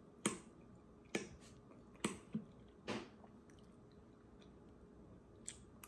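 Close-miked chewing with sharp, wet mouth clicks and smacks, several in the first three seconds, then quieter chewing and one more click near the end.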